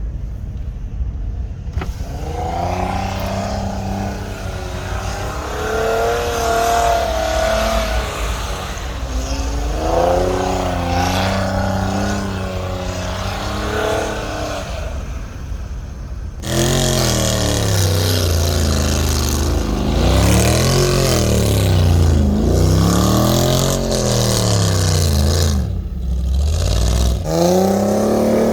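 Off-road 4x4 engines revving up and down over and over under load. About halfway through, it turns louder, with quicker, deeper rises and falls in engine pitch.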